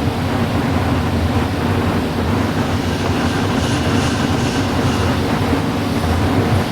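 Steady low mechanical rumble, with faint light scraping about halfway through.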